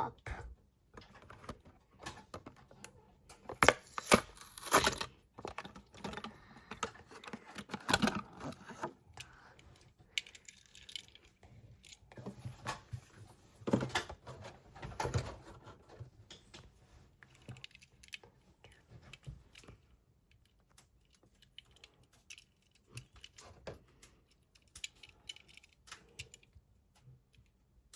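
A Hot Wheels blister-card package being torn and pried open by hand: irregular tearing, crinkling and clicking of cardboard and plastic, busiest in the first half and sparser near the end.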